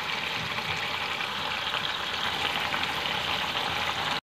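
Marinated chicken pieces sizzling in hot oil in a kadhai: a steady frying hiss with small pops, which cuts off suddenly near the end.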